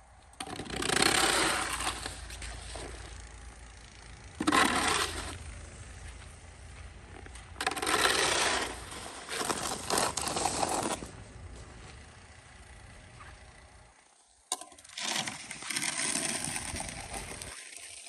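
Plastic snow shovel scraping across a concrete driveway as snow is pushed off, in four separate passes: a long one near the start, a short one, then two longer ones. A steady low wind rumble on the microphone drops out about three-quarters of the way through, and a sharp click comes just before the last pass.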